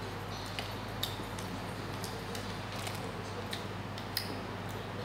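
Eating by hand: scattered small clicks and soft smacks of someone chewing and picking apart grilled saba mackerel with their fingers.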